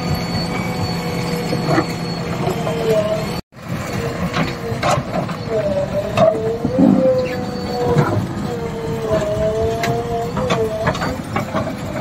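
JCB 3DX backhoe loader's diesel engine running under hydraulic load while the rear bucket digs into and lifts broken stone; the engine note dips and rises several times as the hydraulics work. Sharp knocks of rock against the steel bucket and rocks clattering on the pile, with a brief dropout a little over three seconds in.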